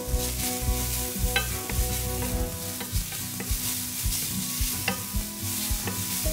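Julienned Korean zucchini sizzling in oil in a stainless steel frying pan, stirred with a wooden spatula that scrapes and taps against the pan several times a second.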